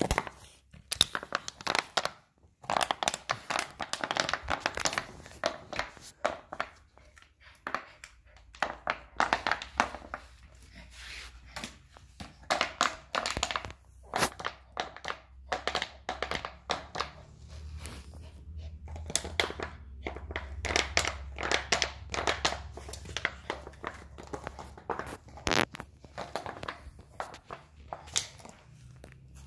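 Yorkshire terrier chewing a plastic bottle: irregular crinkling and crackling of the plastic, coming in short runs.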